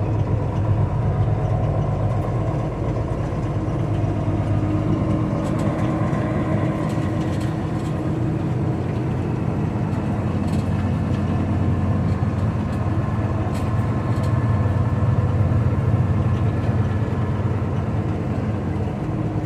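Mack R-model truck's diesel engine running steadily at low speed, heard from inside the cab as the truck rolls slowly, a little louder about three quarters of the way through.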